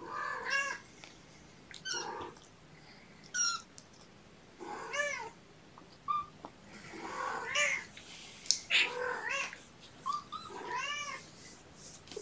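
Young kittens meowing: about eight separate rising-and-falling meows spread out with short gaps, some high and thin.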